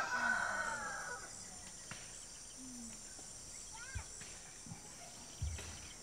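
A rooster crowing, the call trailing off about a second in. Then a quiet rural background follows, with a steady high insect hum and a short bird chirp later on.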